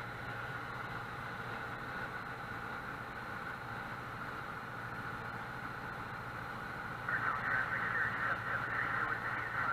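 A light single-engine propeller plane's piston engine and propeller droning steadily, heard from inside the cockpit. About seven seconds in, a louder, wavering sound joins in the upper range.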